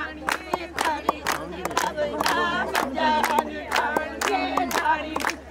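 A group of voices singing together in unison, with hand clapping keeping time at about three claps a second.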